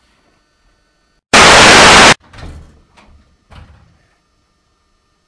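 A sudden burst of loud static hiss, clipped and cutting in and out abruptly, lasting under a second, followed by a few faint thumps and rustles.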